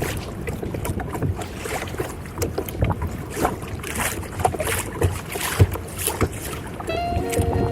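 Water splashing against the hull of a moving kayak, with wind buffeting the microphone. Music comes in near the end.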